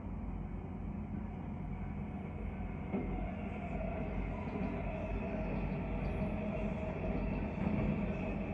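Amtrak Capitol Limited's Superliner passenger train rolling slowly by: a steady low rumble of wheels on the rails. It gets slightly louder about three seconds in, where a faint steady whine joins.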